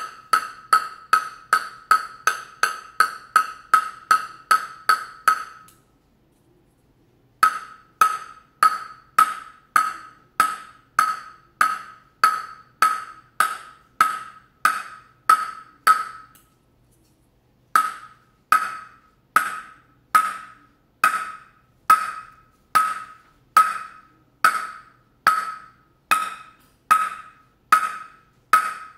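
A table tennis ball bouncing steadily on the bare wooden face of a Butterfly Primorac five-ply blade: hard, evenly spaced taps with a short ringing ping, about two a second. There are three runs, with short pauses about six seconds in and again around seventeen seconds.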